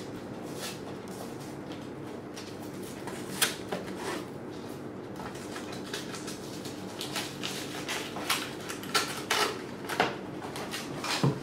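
Plastic packaging and a paper envelope handled while unpacking a box: crinkling and rustling with sharp crackles, sparse at first and coming thick and fast in the last few seconds, over a steady low hum.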